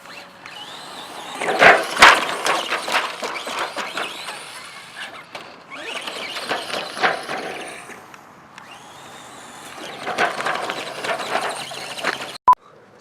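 Hobby-grade electric RC truck driven in three bursts of a few seconds each, its motor and wheels rattling and clicking over rough ground. A short beep cuts in near the end.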